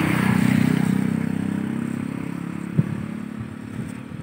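A motor vehicle's engine passing close by with a steady hum, loudest about half a second in and then fading away. A single short knock comes nearly three seconds in.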